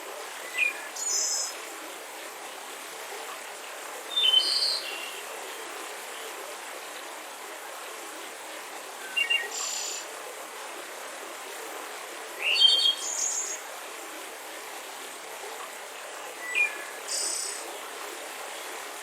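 Mountain river rushing steadily, with a songbird repeating the same short two-part phrase about every four seconds, five times: a quick lower note followed by a higher buzzy one.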